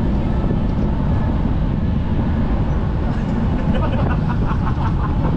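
Steady low rumble of a passenger ship under way, its engines mixed with wind on the open deck, with faint voices and a quick run of short mid-pitched sounds over it in the second half.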